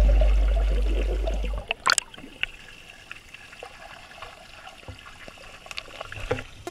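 Background music with a deep bass note fading out and stopping about one and a half seconds in, followed by faint trickling water with scattered small clicks.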